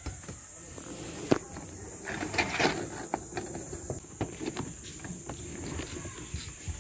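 Handling noise of a dashcam cable being pulled through a car's rubber wiring conduit with a guide wire: scattered scraping and rustling, with a sharp click about a second in and a burst of scraping a little later.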